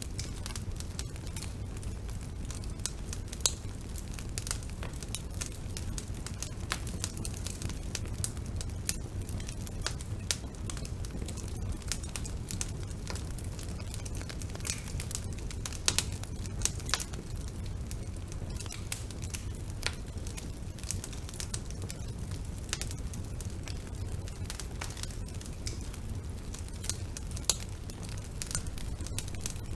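Wood fire burning in a fireplace: a steady low rumble of flame with irregular crackles and pops from the burning logs, a few sharper pops standing out.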